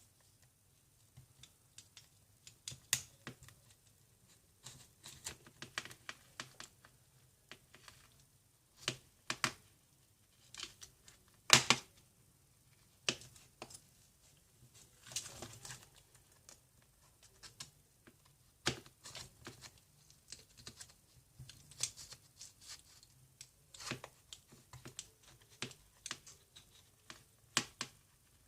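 Scattered small clicks, taps and brief scrapes of hand tools and plastic parts handled on an iPhone, at an uneven pace, with one sharper click about twelve seconds in.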